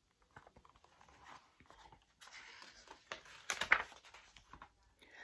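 Pages of a hardcover picture book being handled and turned: paper rustling with light clicks and knocks, loudest about three and a half seconds in.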